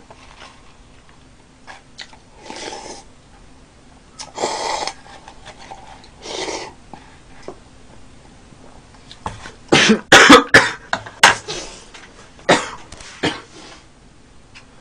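A man coughing hard, a fit of several coughs in quick succession after drinking from a bowl, preceded by three short breathy sounds spaced about two seconds apart.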